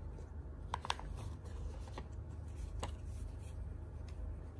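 Light handling of a small cardboard jewellery box and a suede drawstring pouch: a few soft clicks and taps as the pouch is lifted out of the box, over a faint low hum.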